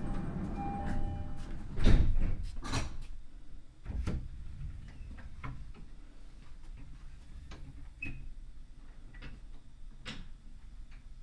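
Sliding passenger doors of an Odakyu 5000-series train car: a short door chime, then the doors move with a loud clunk about two seconds in and a few lighter knocks after it, with the car standing still and quiet.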